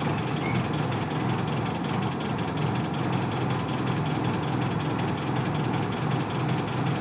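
The 8PE1 V8 diesel engine of a 1998 Isuzu Cubic KC-LV380L city bus running with a steady low drone and a slightly uneven pulse.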